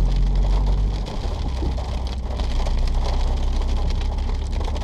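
Hail pelting the roof and windscreen of a moving car, heard from inside the cabin as a dense patter of many small hits over the low drone of engine and tyres.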